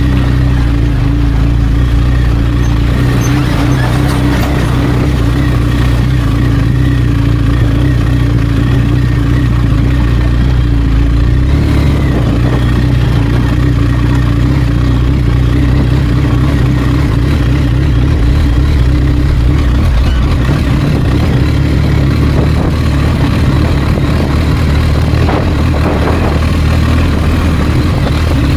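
BMW R1250GS boxer-twin engine running steadily under way, its low engine note shifting pitch twice as the speed changes.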